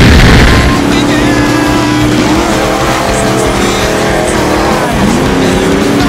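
Off-road race truck engines running hard at racing revs, with a loud rush of wind noise in the first second. About five seconds in, the engine pitch drops sharply and climbs back up as the throttle is lifted and reapplied.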